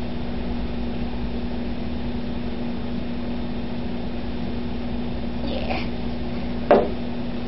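Steady low hum with faint hiss, broken by one sharp click near the end.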